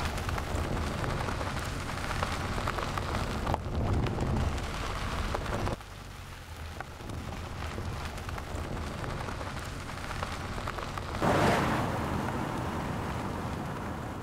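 Tyres of a Mercedes-Benz EQC 400 electric SUV rolling over a dusty gravel road, a steady gritty rush. The level drops about six seconds in, and about eleven seconds in the car passes close with a sudden louder rush that fades away.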